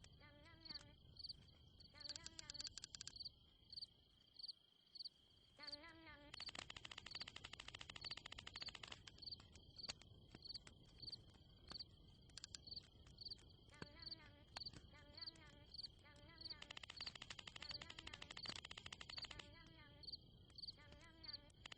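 Faint chorus of insects: a continuous high drone with regular high chirps about one and a half a second, broken by bursts of fast trilling, and a few lower warbling calls.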